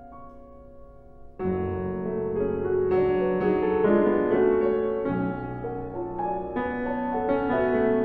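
Solo grand piano playing classical music. Soft held notes die away, then about a second and a half in a louder passage enters with fuller chords and keeps going.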